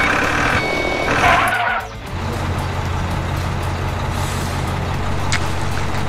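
Heavy truck sound: a loud burst of high noise in two parts over the first two seconds, then a steady low engine drone.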